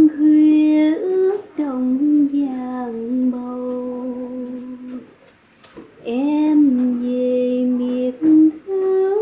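A woman singing a slow lullaby in long held notes, two phrases with a short break about five seconds in.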